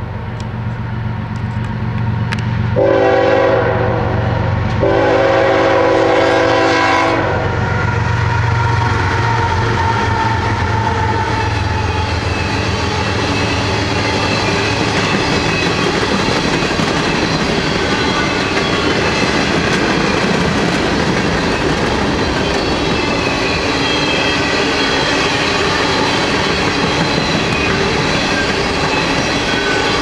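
Norfolk Southern GE ES44AC (GEVO) diesel locomotives rumbling past at a grade crossing, the lead unit blowing its horn twice, a shorter blast about three seconds in and a longer one just after. From about eight seconds in, the engine sound gives way to a steady rumble and clatter of coal hopper car wheels rolling by on the rails.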